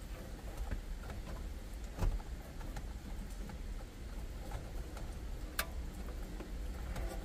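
Faint clicks and small knocks of hands working the plastic push-tab wiring connectors on the back of a factory GM radio, with a low steady hum underneath. There is a louder knock about two seconds in and a sharp click near the end.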